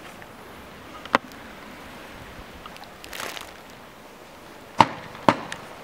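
Fireworks going off: a sharp bang about a second in, a short hiss a little past the middle, and two bangs about half a second apart near the end, over a steady low background noise.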